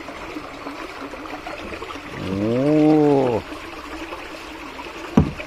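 Water steadily pouring and bubbling into a fishing pond. About halfway through, a person's drawn-out voice sound rises and then falls in pitch for about a second, and a single sharp knock comes near the end.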